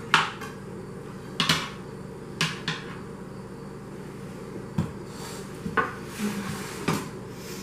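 Metal utensils clinking and knocking against an aluminium sheet pan as a slice of frozen ice cream cake is lifted off it onto a plate: about eight sharp, irregularly spaced knocks, with a short scrape about six seconds in.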